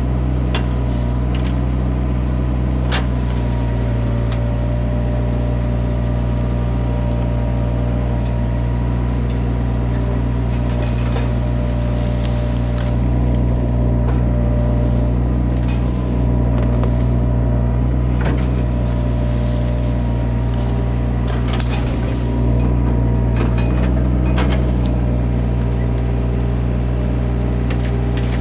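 Hitachi mini excavator's diesel engine and hydraulics running steadily as the bucket digs out and tears poplar roots, growing louder twice for a few seconds at a time. Scattered sharp cracks of roots and wood breaking cut through the engine.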